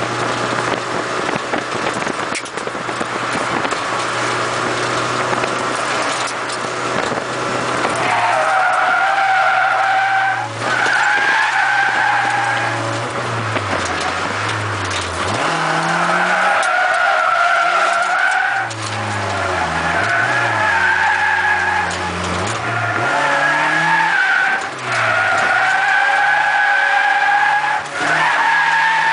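Tires squealing in long drifts from about eight seconds in, with short breaks between slides, heard from inside the car's cabin. Under them the car's engine revs rise and fall as the throttle is worked.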